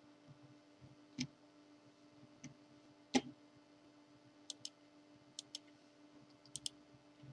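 Faint computer-mouse clicks: a few single clicks, then three quick double clicks, over a steady low electrical hum.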